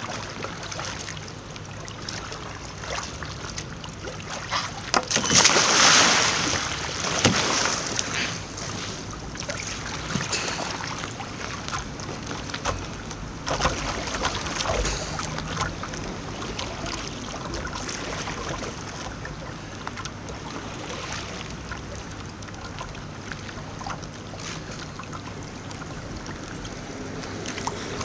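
Kayak paddle strokes dipping and splashing in river water, with a louder rush of splashing about five seconds in that lasts a second or two.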